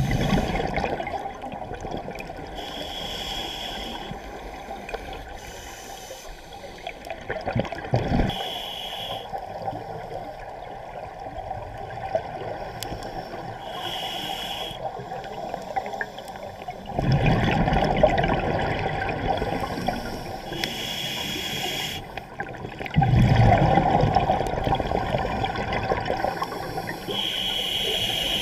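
Scuba diver breathing through a regulator underwater: short hissing inhalations every few seconds, and exhalations as loud gurgling rushes of bubbles, several times.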